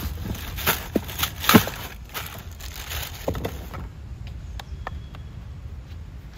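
Plastic wrapping crinkling and the plastic parts of a three-piece inflatable-boat paddle clicking and knocking as it is unwrapped and handled. The handling is busiest in the first few seconds, then drops to a few light ticks.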